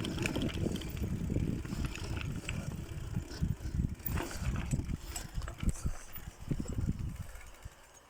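Bicycle being handled and set down: irregular knocks and rattles over a low rumble, dying away near the end.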